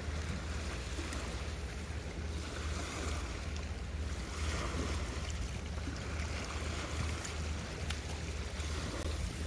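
Waves washing on a shore, swelling and falling every few seconds, with wind rumbling on the microphone.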